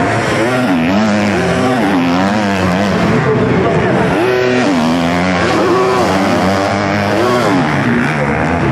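Several 250 cc motocross bikes racing, their engines revving and easing off again and again so that the pitch rises and falls, with more than one engine heard at once.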